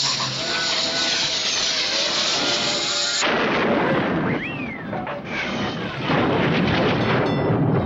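A run of cartoon sound effects: a dense noise with falling whistle-like tones, changing about three seconds in to a rumbling, blast-like noise with a whistle that rises and then falls.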